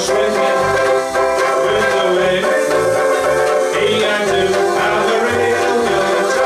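Banjo ukuleles strummed briskly in a lively song, with a steady pulsing bass line underneath.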